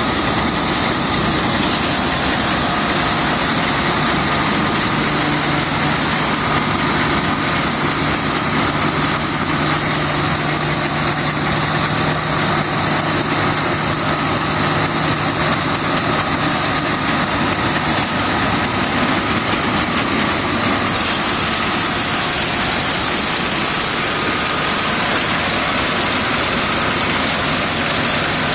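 Dronningborg D880 combine harvester running steadily at work in barley: engine and threshing machinery giving an even drone with a hiss on top.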